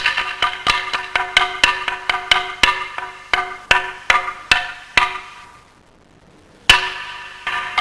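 Wooden semantron struck with a mallet in a quick rhythm of about three strikes a second, each strike with a short pitched ring. The strikes die away about five seconds in, then after a short pause one hard strike sets them going again near the end.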